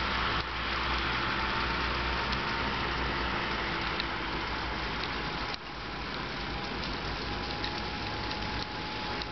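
Steady engine and tyre noise of a car driving along a snow-covered street, with a faint steady whine.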